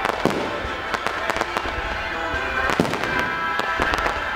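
Aerial fireworks bursting and crackling in rapid, irregular succession, over music played for a pyromusical show.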